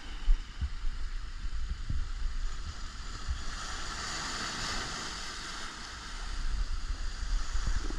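Surf washing over a rocky shoreline: a broad hiss of foaming water that swells for a couple of seconds in the middle, with wind rumbling on the microphone underneath.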